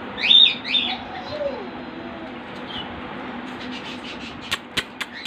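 Birds chirping: two loud, sharp chirps in the first second, then fainter calls. Three sharp clicks come near the end, over a steady low hum.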